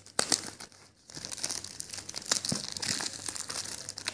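Clear plastic shrink-wrap being peeled and torn off a smartphone's cardboard box, crinkling and crackling: a short burst of crackles, a brief lull, then steady crinkling from about a second in.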